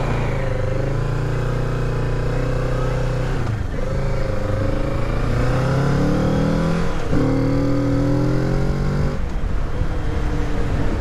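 Kawasaki Z650 parallel-twin engine, restricted to 48 PS, accelerating hard through the gears. Revs climb in each gear, with upshifts about four and seven seconds in, and the throttle eases off about nine seconds in.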